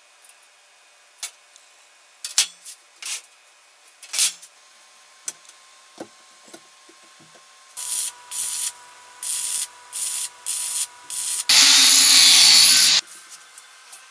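Scattered light knocks and taps of steel sheet being handled, then an electric arc welder crackling in about seven short tack welds on the sheet-steel tray, followed by one longer, louder weld of about a second and a half.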